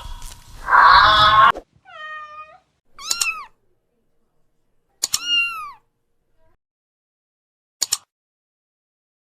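A small animal's high-pitched cries: one loud cry about a second in, then three shorter cries that rise and fall in pitch, with silence between, and a few sharp clicks near the end.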